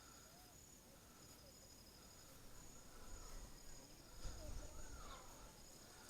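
Quiet rural outdoor ambience: a faint, steady insect trill with a few faint, short bird chirps. A brief low rumble comes about four seconds in.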